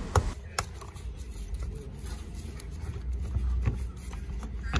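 A few sharp clicks and light scrapes of a screwdriver working plastic clips and bolts loose from the underside of the bumper and splash guard, over a steady low rumble.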